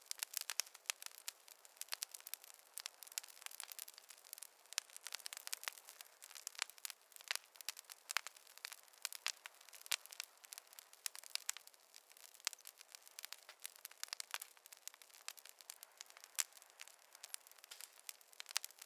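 Wood fire crackling: a steady run of irregular sharp pops and snaps, several a second, over a faint hiss.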